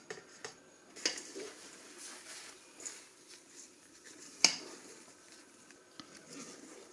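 Spatula folding a thick batter into beaten egg whites in a metal mixing bowl: soft squelching and scraping, with scattered clicks of the spatula against the bowl, the sharpest about four and a half seconds in.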